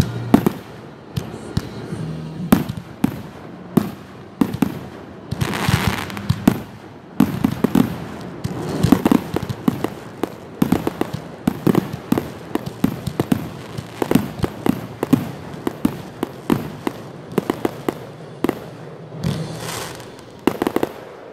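Closing barrage of a fireworks display: aerial shells bursting in rapid succession, bang after bang, thickest in the middle. A longer hissing crackle comes about six seconds in and again near the end.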